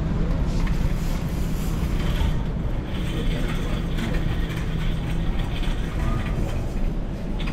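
Shopping cart rattling as it is pushed along, over a steady low hum, with faint talk in the background.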